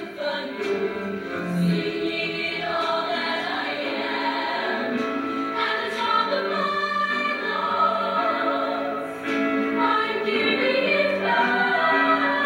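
Female show choir singing with many voices in harmony.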